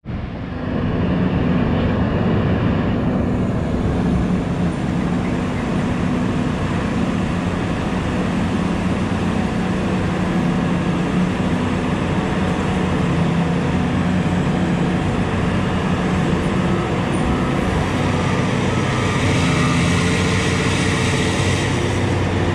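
Liebherr hydraulic mining excavator running steadily as its bucket digs into the face, a constant deep engine and hydraulic hum, with added hiss for a few seconds near the end.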